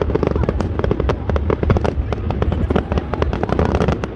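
Aerial fireworks display: many sharp bangs and pops from bursting shells in quick succession, over a steady low rumble.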